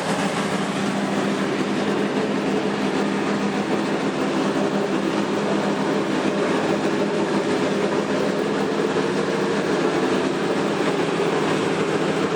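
A loud, steady mechanical drone with several held tones, from a large engine or machine running.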